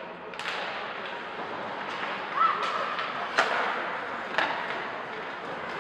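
Ice hockey play: sharp knocks and thuds of sticks striking the puck and the puck or players hitting the boards, several in a few seconds, over a steady background of rink and crowd noise.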